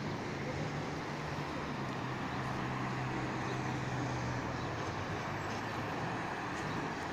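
Steady road traffic noise, with a low hum for the first few seconds.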